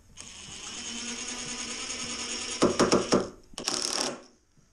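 Cordless drill-driver whirring steadily as it drives a screw through a steel hinge into timber. About two and a half seconds in it changes to a loud rapid clatter of the clutch slipping as the screw seats, then a second short burst near the end.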